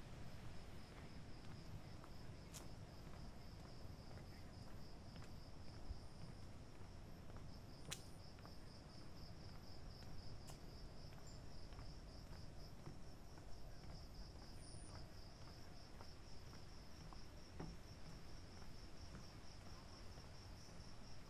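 Night insects trilling steadily, one high, rapidly pulsing note, with a low rumble underneath and a few sharp clicks.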